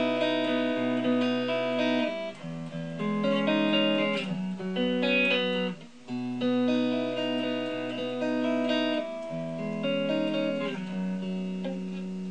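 Ibanez S470 electric guitar with DiMarzio Gravity Storm pickups, played clean through an amp. Sustained chords ring out and change every few seconds, with a brief dip about six seconds in.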